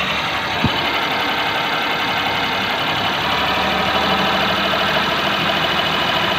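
Maruti Suzuki 800's three-cylinder petrol engine running steadily under a light touch of throttle, with its AC and alternator drive belts off. The noise heard earlier on light revving is absent, which points to the AC belt side. There is a single short click about half a second in.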